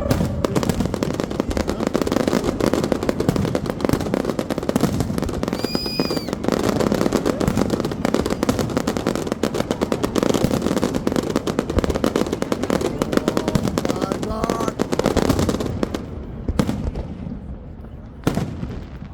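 A large fireworks display: a dense, continuous barrage of rapid bangs and crackling, with a brief rising-and-falling whistle about six seconds in. The volley thins out into separate bangs near the end. Crowd voices sound underneath.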